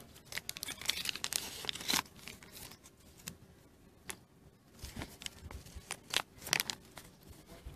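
Thin folded paper instruction leaflet being unfolded and smoothed out by hand, crinkling and crackling. The crinkling is heaviest in the first two seconds and again from about five to seven seconds in.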